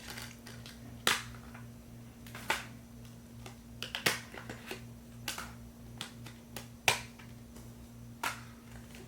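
Sharp plastic-and-metal clicks from a steelbook Blu-ray case and its discs being handled, about a dozen irregular clicks with the loudest near seven seconds in, over a steady low electrical hum.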